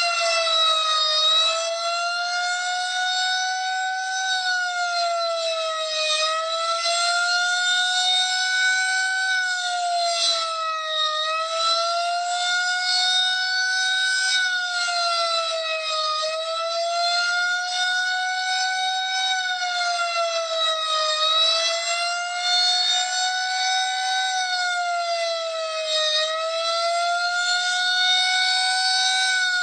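Outdoor emergency warning siren sounding a steady wail, its pitch gently rising and falling about every five seconds. It is a test of a campus emergency alert system.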